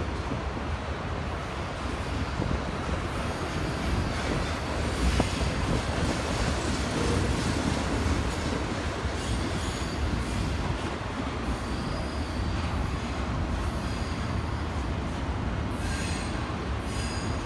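Double-stack intermodal container freight train rolling past: a steady rumble of wheels and cars on the rails, with faint high-pitched wheel squeal now and then, clearest near the end.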